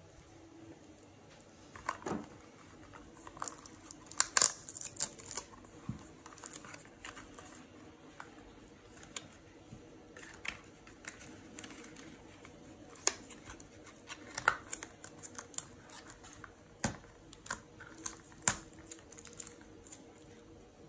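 A small paperboard cosmetics carton and a cream jar being handled: scattered rustles, scrapes and light taps as the jar is slid out of its box and the box is set down, with a few sharper clicks.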